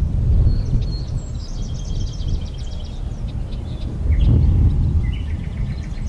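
Small songbirds singing in quick chirping, trilled phrases, over a low rumble that swells about four seconds in.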